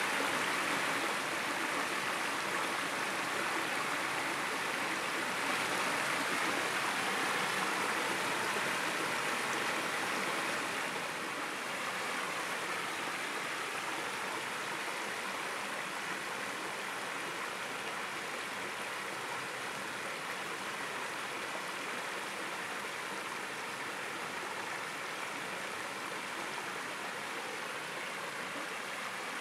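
Shallow stream rushing over rocks: a steady rush of water that drops a little in level about eleven seconds in.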